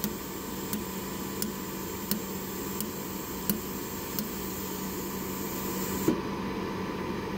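DADO dental laser welder firing a series of pulses onto an orthodontic molar band: a sharp click about every 0.7 seconds, seven or so in a row, over a steady high hiss. Near the end a single louder click comes and the hiss cuts off.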